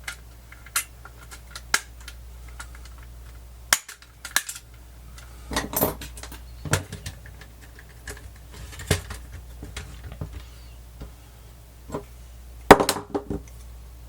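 Irregular sharp clicks and knocks of small plastic parts being handled: the Sony WM-FX190 Walkman's casing being fitted back together and latched. The loudest cluster of clicks comes near the end.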